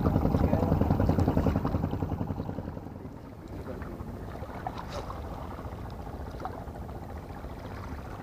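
A boat's engine chugging with a fast, even beat, fading away about three seconds in, leaving a low steady background with a few faint clicks.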